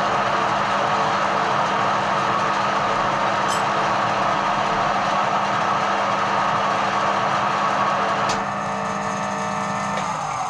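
Edgwick metal lathe running with a steady motor hum and gear noise. A sharp click comes about eight seconds in, and near the end the motor hum stops and the machine starts to wind down.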